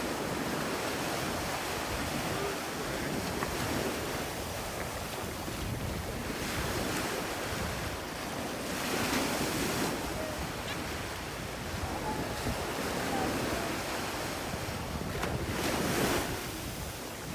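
Waves washing in, surging every few seconds, with wind buffeting the microphone.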